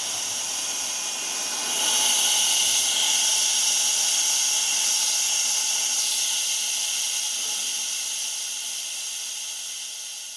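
Steady hiss of air, a sound effect for aeration air blown through a porous fluidizing bottom to loosen powder in a silo cone so it flows. It swells about two seconds in, then slowly fades toward the end.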